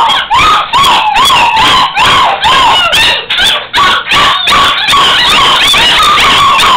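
A litter of young puppies yipping and whining in quick, high-pitched, arching cries, two or three a second, which turn into a longer wavering howl about five seconds in.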